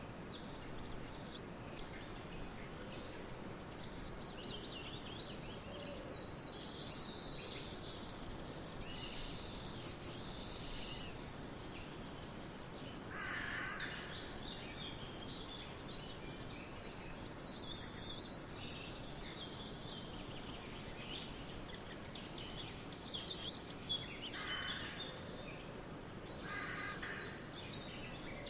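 Wild birds singing and calling over a steady background hiss of forest ambience, with bursts of high chirps and trills and, a few times, lower calls.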